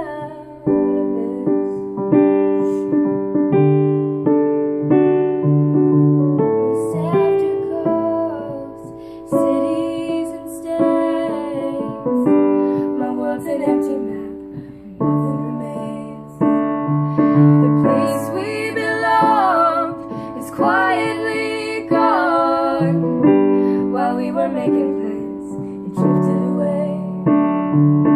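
A slow song on an electric keyboard, chords held one after another, with a young woman's voice singing the melody over it.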